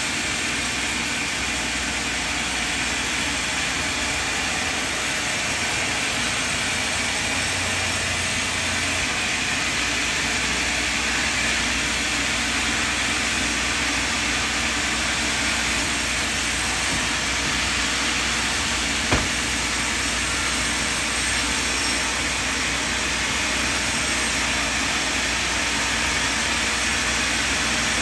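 Band sawmill machinery running steadily with an even hiss and low hum while the blade is not cutting. One sharp knock sounds about two-thirds of the way through.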